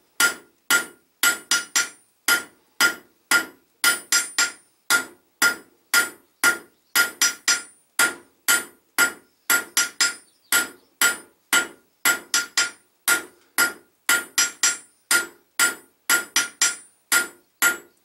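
Blacksmith's hand hammer striking hot steel on an anvil in a steady rhythm, about two to three blows a second, each with a bright metallic ring. The smith is drawing a steel rod out to a point, the first stage of forging a hand-made nail.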